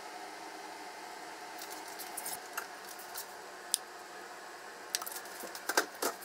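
Hands tearing and laying soft slices of smoked salmon onto a salad, with squishy handling noises and clusters of crinkles and sharp clicks as the packaging is handled, over a steady low background hum.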